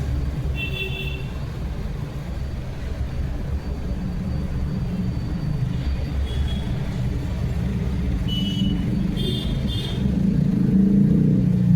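Steady low rumble, like road traffic, swelling louder near the end, with a few short high-pitched chirps scattered through it.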